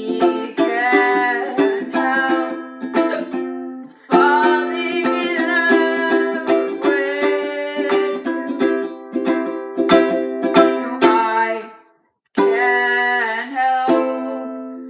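Ukulele strummed in slow chords, with a voice singing over it in the first few seconds. The sound drops out completely for about half a second near the end, then the strumming picks up again.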